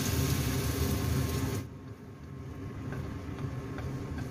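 Beaten egg sizzling in a hot oiled wok as it is poured over sliced bitter melon, over a steady low hum. About a second and a half in, the sizzle drops off abruptly and then builds back softer, with a few light taps.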